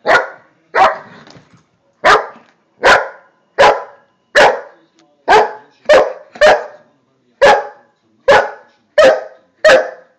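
Large dog barking over and over, about a dozen short, loud barks roughly one a second, some in quick pairs. The dog barks from a play bow: play barking.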